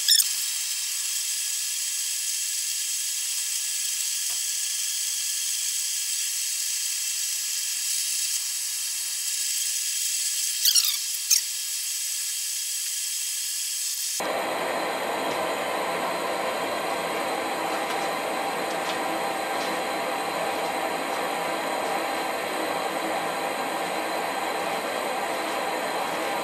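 Propane torch burner running in a small firebrick forge, a steady hiss. For the first half it is thin and high, sped up tenfold, with a few squeaky chirps about eleven seconds in; about halfway through it switches abruptly to a fuller, lower, steady rush.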